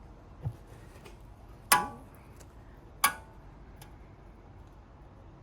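A screwdriver levering between a brake caliper and disc to push the caliper piston back. It gives a soft knock and then two sharp, ringing metallic clinks about a second and a quarter apart.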